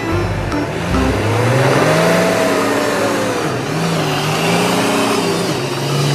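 Engine-like revving sound, its pitch slowly rising and falling over a dense roar, cutting off suddenly at the end.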